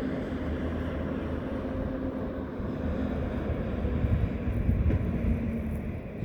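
Steady low mechanical rumble with a droning hum running through it, growing louder and rougher about four seconds in.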